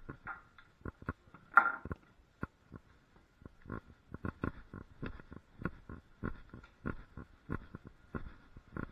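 A rapid series of light knocks and clicks, irregular at first and then about three a second, with one louder, longer knock about a second and a half in, over a faint steady high hum.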